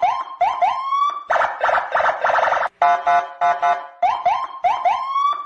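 Electronic police siren cycling through its pattern: a few short rising whoops, one longer upward sweep, then a fast warbling yelp, repeating.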